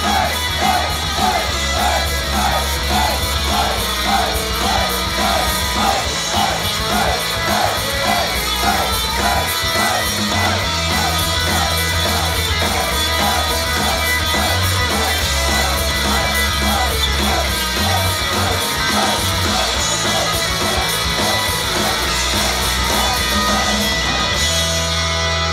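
Idol group's live performance: loud heavy rock music with singing and yells over a steady beat. The music shifts to a new section near the end.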